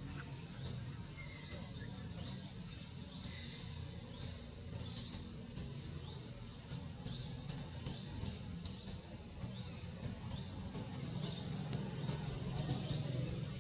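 Forest ambience: a small creature repeats short, high, upward-sweeping chirps about three times every two seconds, over a steady low hum.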